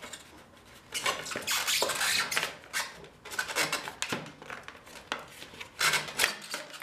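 Rear fender of a Honda CX500 being worked out of the motorcycle frame by hand, scraping and rattling against the frame in irregular bursts that start about a second in.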